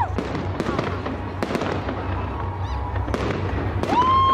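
Aerial fireworks salute: a string of sharp cracks and bangs from shells bursting overhead, about two a second, over a low rumble. Near the end a high-pitched tone is held for about a second.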